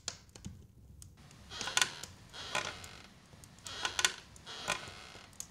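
Faint creaks of seat furniture as someone shifts in a chair, in four or five short clusters spread through the few seconds.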